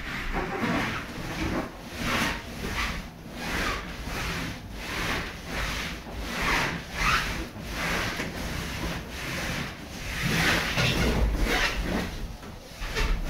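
Inflated latex balloons rubbing against one another and against a furry costume as a person presses and rides on them, in repeated rubbing strokes about two a second.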